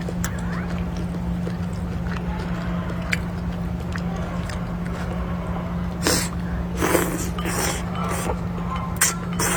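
A person eating at the table makes a few short, breathy noises in the second half, over a steady low hum.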